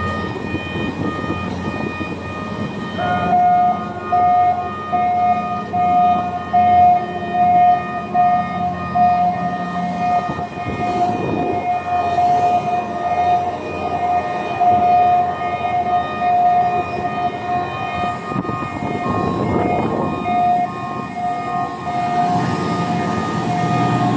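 Gantry crane hoisting a heavy load on chains while its warning alarm sounds: a steady high tone that starts about three seconds in and swells and fades in strength, over the noise of the crane's machinery.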